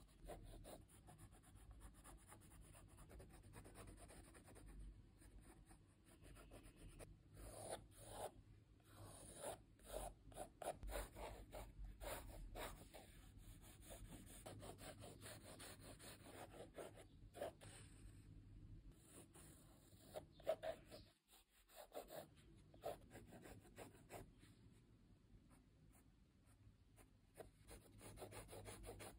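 Blue coloured pencil scratching on sketchbook paper in quick repeated hatching strokes, faint and uneven, with one sharper tap about two-thirds of the way through.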